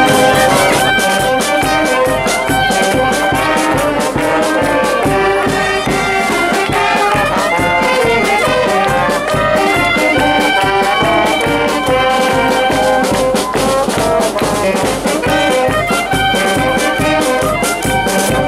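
Street brass band playing a lively tune: trombone, saxophones and clarinets carry the melody over a steady bass-drum beat.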